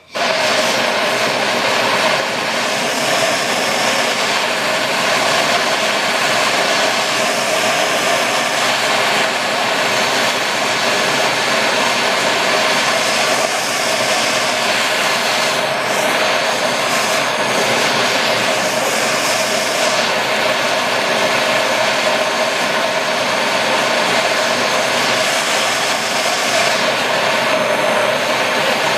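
Propane torch turned up high, a steady loud rushing burn with a hum in it, heating an aluminum tee joint up to the melting point of the brazing rod.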